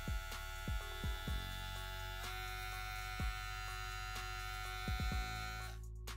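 Kemei KM658 cordless hair trimmer running, quiet: a steady electric hum and whine. About two seconds in its pitch steps up slightly, and it stops shortly before the end.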